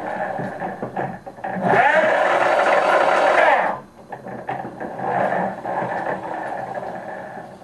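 Electric drive motors of a homemade self-balancing two-wheeler whining as they spin the wheels, speeding up and slowing with rising and falling pitch. Loudest about two seconds in, it drops away near the four-second mark, then runs more softly.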